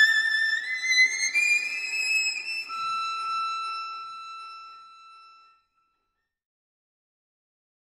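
A violin playing a high melody that climbs step by step and settles on a long held note, which fades away about five and a half seconds in.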